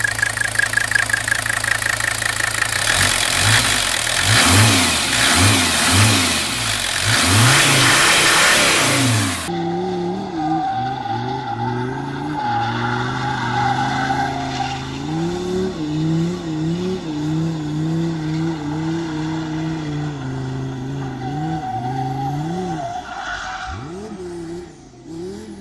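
Mercedes-Benz OM617 five-cylinder diesel engine idling with a regular clatter, then blipped up and down several times in quick free revs. About nine and a half seconds in, the sound cuts to the same type of engine held high and rising and falling in revs under load during a burnout.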